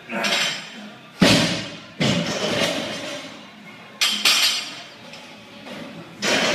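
A barbell loaded with 135 lb of bumper plates, dropped from overhead onto a wooden lifting platform after a power snatch, lands with a heavy thud about a second in. Further sharp knocks follow about every two seconds.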